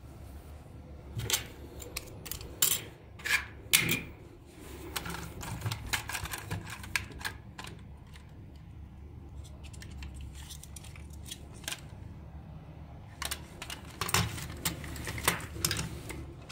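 Hard plastic parts of a toy being handled and pried apart: irregular sharp clicks, snaps and rattles, thickest in the first few seconds and again near the end, over a steady low hum.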